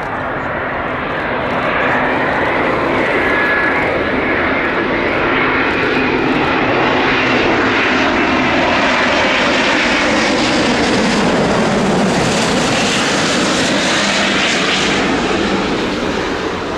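Airbus A350's Rolls-Royce Trent XWB turbofans on landing approach, passing low and close: loud, steady jet engine noise that builds over the first two seconds. Whining engine tones slide down in pitch as the aircraft goes by, and the noise eases near the end.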